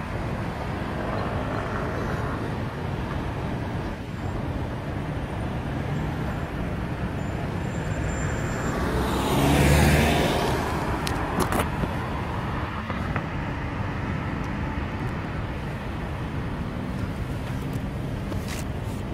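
City road traffic: a steady hum of cars moving slowly, with one vehicle passing close by about halfway through, swelling and then fading, followed by a few sharp clicks.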